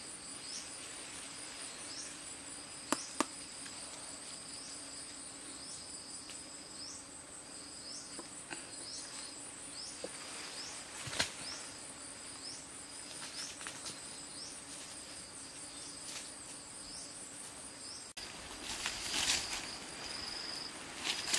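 Insects trilling steadily at a high pitch, with a short rising chirp repeating a little more than once a second, and a few sharp knocks. Near the end the background changes and rustling is heard.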